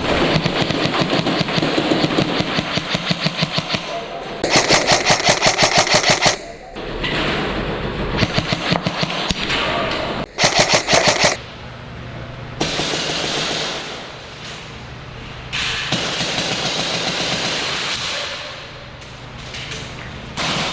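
Airsoft electric guns firing in rapid full-auto bursts, the loudest a run of about two seconds some four seconds in and another of about a second near the middle, with shorter bursts between.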